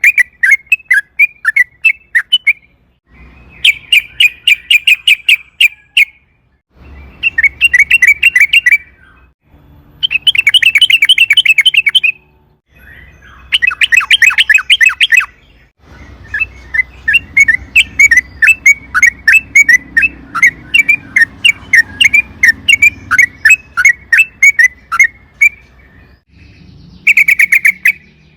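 Sooty-headed bulbul (trucukan) singing loudly. It gives repeated phrases of rapid, bubbly chattering notes, each phrase a few seconds long and separated by short pauses, with one long unbroken run in the second half.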